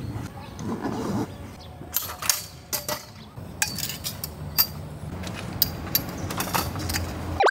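Metal tent-frame poles clinking and knocking as the frame is pulled apart and gathered up, a scatter of sharp clinks from about two seconds in, over a steady low rumble.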